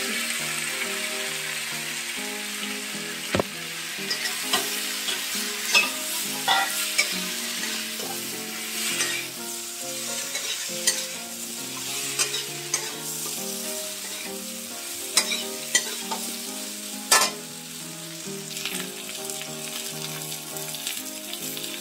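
Vegetables sizzling in hot oil in a wok as a steel spatula stirs them, with repeated sharp knocks and scrapes of the spatula against the pan, the loudest about 17 seconds in.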